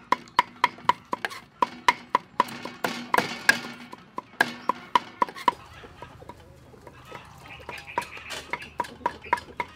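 Cleaver chopping garlic on a round wooden chopping board: quick, steady knocks about four a second, pausing about five and a half seconds in and going on more lightly near the end.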